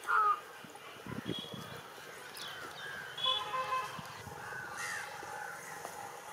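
Birds calling outdoors: many short overlapping calls and chirps, the loudest right at the start and again a little after three seconds, with a few low dull thuds about a second in.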